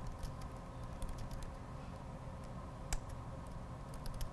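Faint typing on a computer keyboard: irregular key clicks, with one sharper click about three seconds in, over a low steady room hum.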